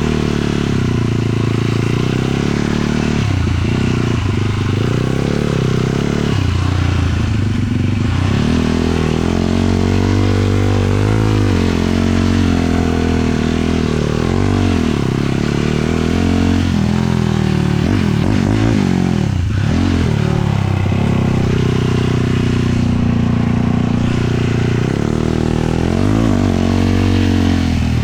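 450cc single-cylinder four-stroke sport quad engine under way, revving up and easing off again and again as the throttle is worked.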